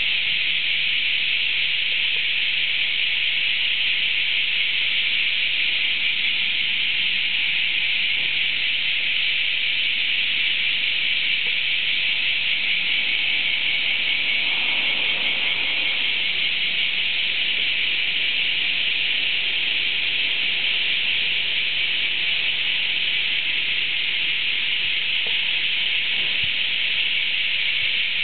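Massed chorus of cicadas, a dense, steady buzz that holds at the same level throughout.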